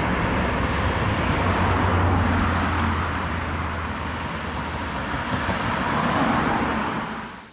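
Road traffic passing close by on a main road, with a low engine rumble that swells and fades as a vehicle goes past about two seconds in. The traffic noise cuts off suddenly near the end.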